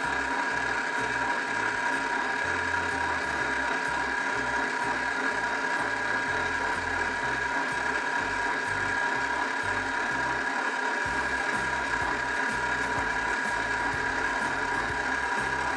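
Nostalgia retro slush drink maker running on freeze: its motor turns the paddle in the ice-and-salt-packed canister with a steady mechanical whir and an even whine.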